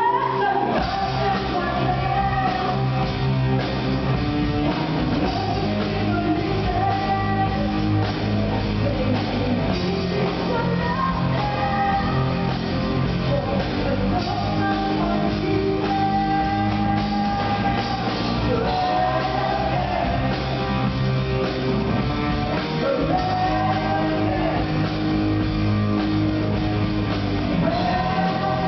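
Progressive rock band playing live: a sustained, bending melodic lead line over a steady full-band backing.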